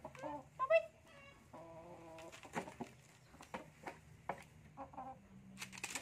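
Short animal calls, one of them a steady buzzy call lasting under a second about a second and a half in, among light clicks and rustling.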